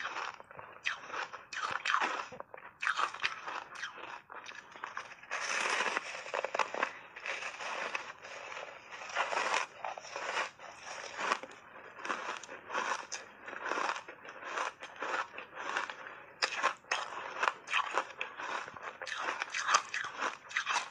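Refrozen block ice coated in matcha powder being bitten and chewed: a steady run of crunching and crackling, with some louder bites.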